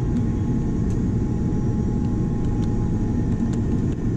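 Airliner cabin noise heard from a window seat: a steady low rumble of the jet engines and airflow, with a faint steady whine above it.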